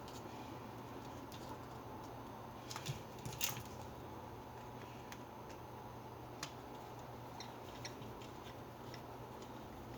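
Faint clicks and taps of small hammer-drill parts, screws and a screwdriver being handled during reassembly. A short cluster of sharper clicks comes about three seconds in, then a single click and a few light ticks later, over a steady low hum.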